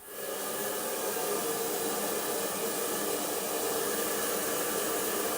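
Handheld hair dryer blowing steadily: a rush of air with a faint motor whine.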